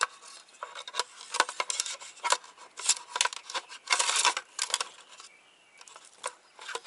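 An AFR gauge and its wiring being worked by hand through a gauge mount: irregular clicks, taps and rubbing scrapes, thinning out near the end.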